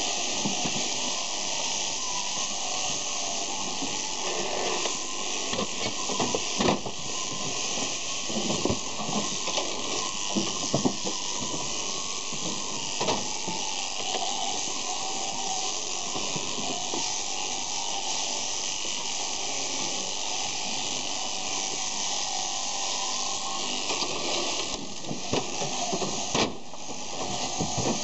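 Electric sheep-shearing handpieces running steadily with a high hissing buzz as they cut wool while crutching Merino sheep. A few sharp knocks and clanks from the crutching cradle and the sheep stand out now and then.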